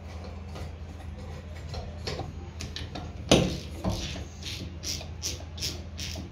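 Socket wrench working a nut on the bearing housing of an old piston water pump: a sharp metal knock about three seconds in, then a run of about five light clicks, two or three a second, near the end.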